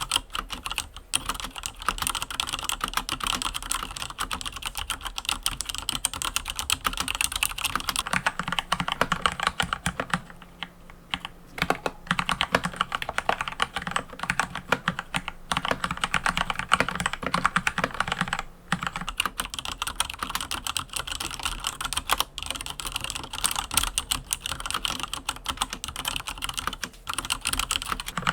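Mechanical keyboard being typed on fast and continuously, a dense run of key clacks, with a couple of brief pauses about ten seconds in and again a little past halfway.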